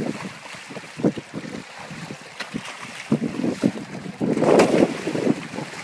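Tarpon splashing and thrashing at the water's surface as they snatch fish scraps, a run of irregular slaps and splashes with a louder burst of splashing about four seconds in.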